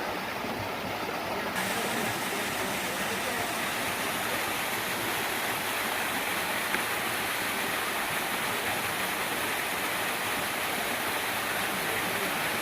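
Cascade Falls, a small woodland waterfall, rushing steadily. The hiss gets a little brighter about a second and a half in.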